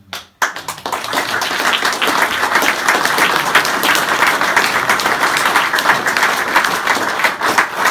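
Audience applauding, many people clapping together, breaking out suddenly about half a second in and going on steadily.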